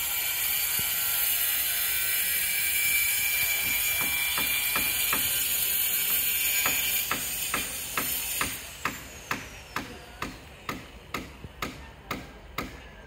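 A steady hiss, then a regular ticking of about two sharp clicks a second that stands out more clearly over the second half.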